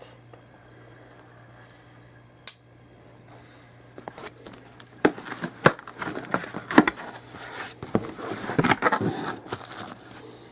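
Packaging being handled: a single click, then a long stretch of crinkling and rustling that starts about four seconds in, as paper and wrapping are pulled about and crumpled.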